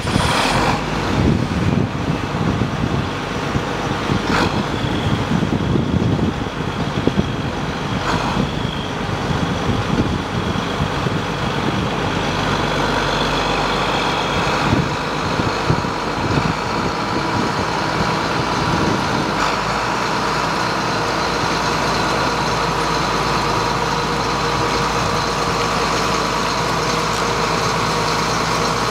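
John Deere 8760 tractor's six-cylinder diesel engine running just after starting. It sounds uneven for the first dozen seconds or so, then settles into a steady idle.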